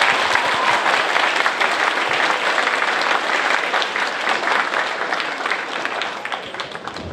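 Audience applauding steadily, a dense clatter of many hands clapping that thins out near the end.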